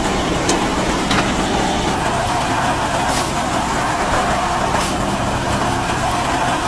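Combine harvester engine running steadily with a constant low hum and a few light clicks.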